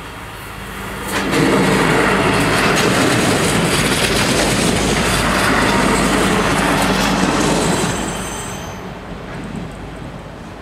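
Bombardier Talent diesel multiple unit passing over a level crossing: a low engine hum builds, then about a second in comes a loud rush of wheels with clicks over the rail joints that lasts until about eight seconds in. It then fades as the train draws away, with a brief high wheel squeal.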